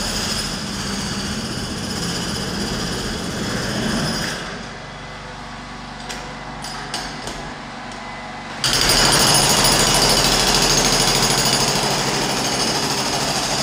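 Loud, steady noise of construction machinery at work. It falls away for about four seconds in the middle, leaving a few light knocks, then starts again abruptly and louder.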